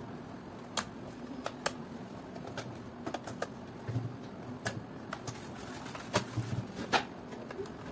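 Irregular sharp plastic clicks and taps as the white plastic housing of a Kenwood hand mixer is handled and its top shell pressed onto the body, with a few dull knocks about four and six seconds in.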